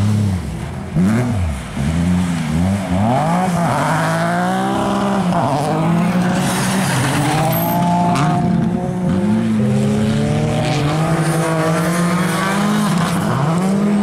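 Rally car engines revving hard on an ice track. In the first few seconds the revs rise and drop sharply over and over as the driver blips and lifts the throttle through the slide. After that come longer, steadier climbs in pitch as the cars pull through the corner.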